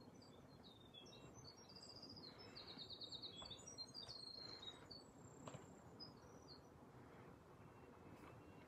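A small songbird singing a long, high, jumbled song with rapid trills for about six seconds, faint against quiet forest ambience. A couple of soft knocks come midway.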